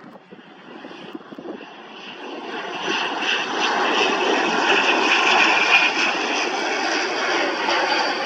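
An ATR 72 twin-turboprop airliner passes close on landing, just above the runway. Its engines and propellers grow much louder over the first three seconds, then hold a steady drone with a high whine over it.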